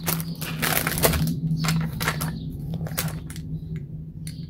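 Clear plastic bag crinkling as it is handled, with light clicks and taps of the figurine stand's plastic pieces, thick at first and thinning to scattered clicks after about a second. A steady low hum runs underneath.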